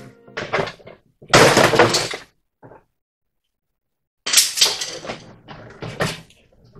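Cured Kevlar-and-foam door panel cracking and crackling as it is pried free of its mould, in several noisy bursts of separation: the loudest starts about a second in, and another long one comes a little after the middle.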